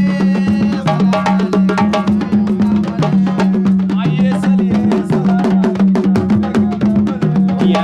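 Upbeat background music: fast, busy percussion over a repeating two-note bass line, with a melody above.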